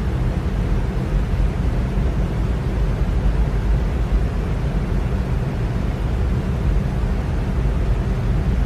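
Electric fan running steadily: an even rush of air, strongest in the low end, with a faint hum underneath.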